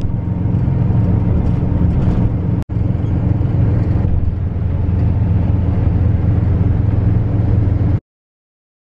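Steady engine and road noise inside a moving bus's cabin. It drops out briefly about a third of the way in and cuts off suddenly near the end.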